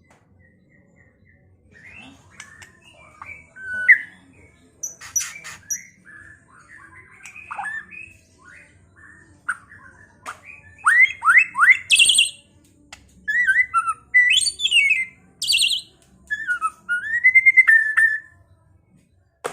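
White-rumped shama (murai batu) singing a varied song of clear whistles, quick rising sweeps and chattering notes. The song is quiet at first and louder in the second half.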